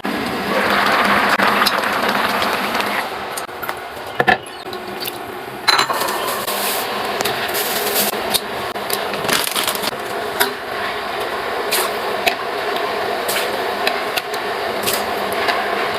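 Irregular knocks, clicks and clinks of objects being handled, with a rushing, hiss-like noise in the first few seconds.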